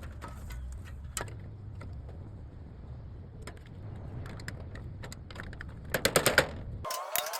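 Scattered metallic clicks and knocks of hand tools and loose parts as the fan motor is worked out of an air-conditioner condenser unit, over a steady low rumble. About six seconds in comes a fast run of sharp clicks, the loudest sound here.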